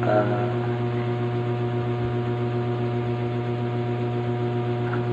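Steady low hum made of several fixed tones, holding an even level.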